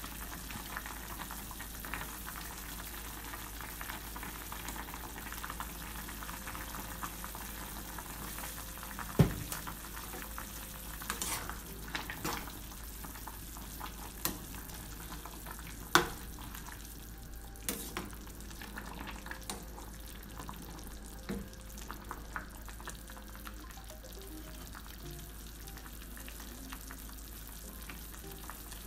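Sinigang broth with radish simmering in a stainless saucepan on a gas burner, a steady low hiss. Through the middle, a metal spoon stirring the pot clinks sharply against the pan several times.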